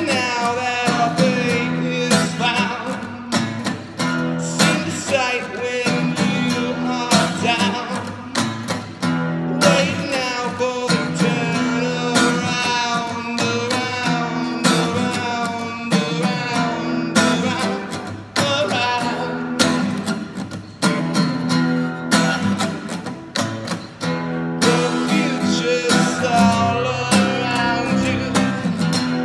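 Man singing while strumming an acoustic guitar, with chords struck in a steady rhythm under a sung melody.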